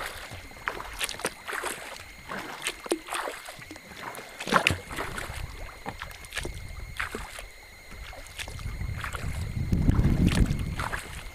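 A kayak being paddled through moving water: irregular paddle dips and splashes with small knocks and drips. A low rumble of wind on the microphone builds up from about eight and a half seconds in.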